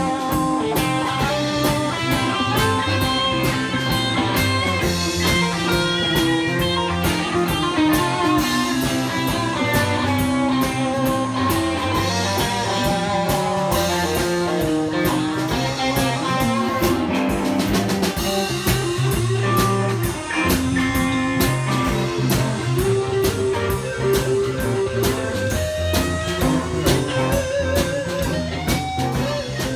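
Live band playing electric guitars over a drum kit, with guitar lines running over a steady beat.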